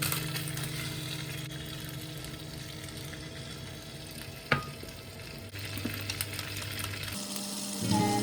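Food sizzling as it fries in a pan, with one sharp tap of a utensil about halfway through and a few lighter clicks after it.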